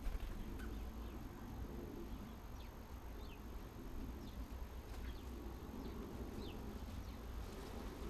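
Garden ambience: a steady low hum with a dozen or so faint, short, high chirps from small birds scattered through it, each falling slightly in pitch.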